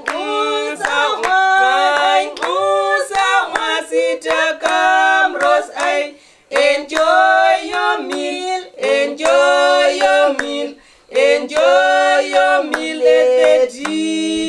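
Women singing a cappella, clapping their hands along with the song. The song breaks off briefly twice, about six and eleven seconds in.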